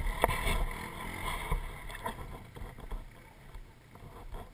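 Muffled low rumble of a stopped ATV's engine idling, heard through the GoPro housing, with a sharp knock just after the start; the sound grows quieter in the second half.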